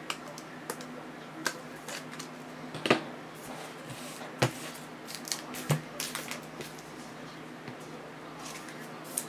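Trading cards and their plastic holders being handled on a table: scattered clicks, taps and rustles. The loudest are a few sharp knocks about three, four and a half, and almost six seconds in.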